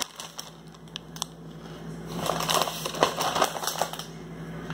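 Crackly crunching and rustling from chewing a crunchy snack and handling its packaging, with scattered small clicks; loudest about two to four seconds in.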